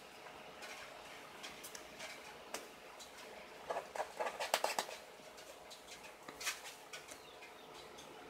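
Hatching quail chicks peeping and tapping inside their eggs, with a brief run of rapid squeaky chirps about four seconds in and scattered faint clicks, over a steady background hum.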